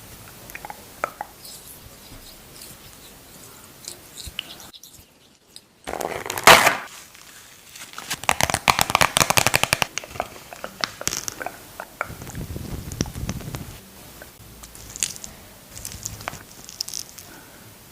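Close-miked ASMR handling of skincare products and their packaging: scattered taps and crinkles, a loud rustle about six seconds in, and a run of rapid crackling a couple of seconds later.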